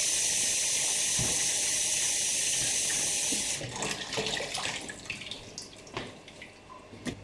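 Kitchen sink tap running, water pouring into a dish, shut off abruptly about three and a half seconds in. After it, a few small clinks and knocks.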